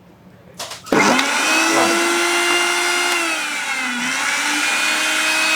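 Panasonic MX-AE 475 mixer grinder: a short clack as the lid lock is closed, then the motor starts about a second in and runs with a steady high whine that dips slightly in pitch midway. It runs because the lid is now fully locked.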